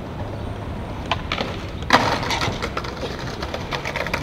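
Skateboard wheels rolling down a rough concrete bank, then a loud smack about two seconds in as the skater falls and the board hits the slope, followed by a rapid clatter of the board knocking on the concrete.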